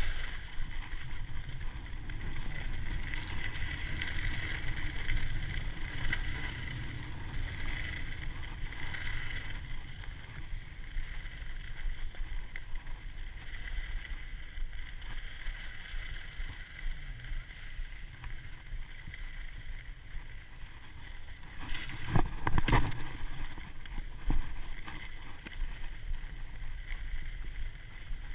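Wind rumbling and buffeting on the camera's microphone as the skier runs down a groomed piste, with the skis hissing and scraping over packed snow. A short, loud clatter comes about 22 seconds in.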